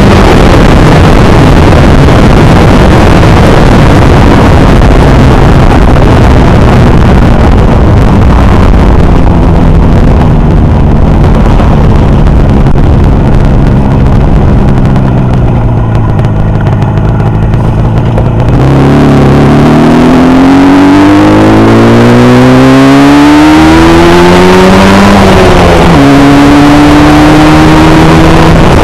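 Motorcycle engine running, its revs sagging slowly through the first half, then climbing steadily for about seven seconds before dropping sharply and holding steady.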